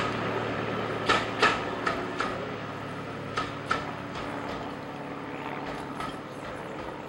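Wheels of passing railway coaches clicking over rail joints in quick pairs, over a steady rolling rumble. The clicks grow fainter and the rumble fades as the train draws away.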